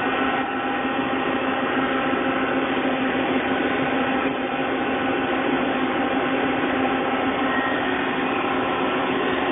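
Mori Seiki CNC turret lathe running with a steady machine hum: a constant noise with several steady tones, unchanging throughout.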